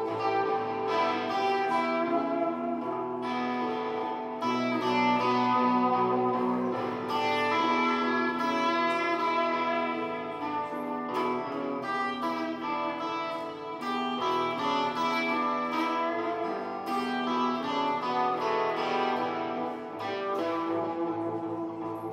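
Electric guitar playing a blues, with long sustained notes and no drums.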